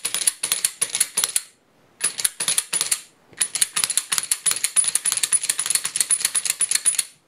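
Springfield XD-S pistol's slide worked back and forth in quick short strokes on its freshly lubricated rails: a rapid metallic clicking, several clicks a second, in three runs with two short pauses.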